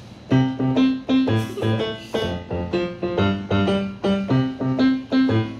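Roland BK-3 electronic keyboard played in a piano voice: a steady run of notes over a low bass part, starting just after the beginning.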